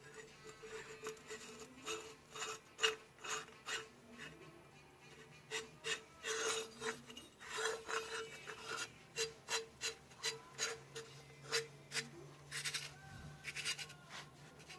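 Pistol buffer tube being screwed by hand into the threaded receiver extension ring of an Anderson AR-15 lower receiver: metal threads rubbing and scraping in short, irregular strokes with small clicks. It goes in nicely, a sign of a mil-spec fit.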